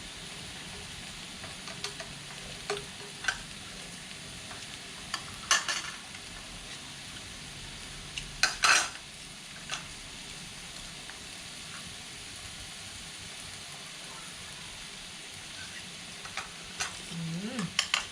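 Pork sizzling on a mookata grill pan, a steady hiss, with scattered clicks and clinks of utensils against the pan and dishes. The loudest clatter comes about eight and a half seconds in, and several more come near the end.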